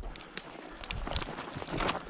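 A hiker's footsteps on rough ground while pushing through scrub brush, with irregular clicks, scrapes and thuds.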